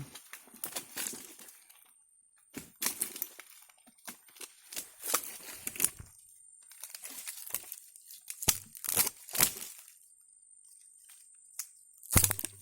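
Dry twigs, stems and leaf litter cracking and snapping in irregular bursts, louder near the end.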